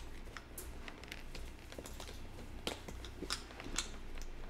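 Scattered small clicks and scrapes of hard plastic as a Sena Bluetooth intercom clamp is worked loose from the edge of a motorcycle helmet shell.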